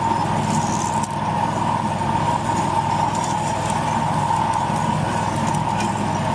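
Lawn mower engine running steadily, with a constant high whine over the engine note.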